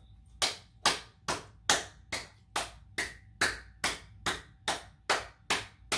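A person clapping their hands in a steady, even rhythm of about two and a half claps a second, starting about half a second in.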